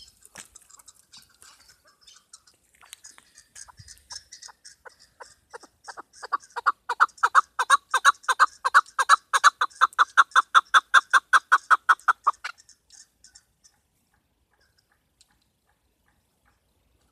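Chukar partridge calling: a series of clucking notes that starts soft and builds into a loud, rapid run of about four to five notes a second, then stops abruptly. The last few seconds are nearly silent.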